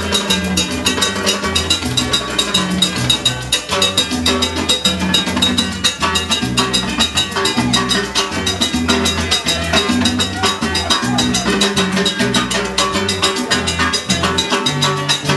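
Salsa music playing loudly, with busy percussion over a stepping bass line.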